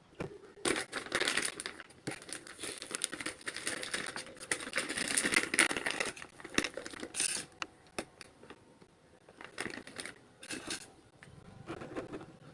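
Crinkling and rustling, with many sharp clicks, as of packaging being handled. It comes in uneven spells and is busiest in the first two-thirds.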